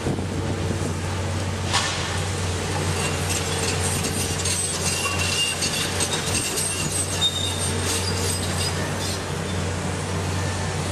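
Excavator diesel engines running steadily at a demolition site. From about two seconds in until near the end there is crunching and clattering with high metallic squeals, typical of steel and concrete debris being torn and scraped.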